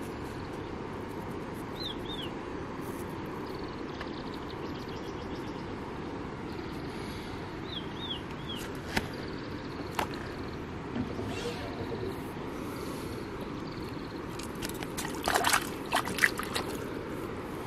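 Reservoir-bank ambience: a steady low rush with water lapping at the bank. A bird's short high three-note chirp comes twice early on, a couple of sharp clicks follow in the middle, and a louder cluster of knocks and clicks comes near the end.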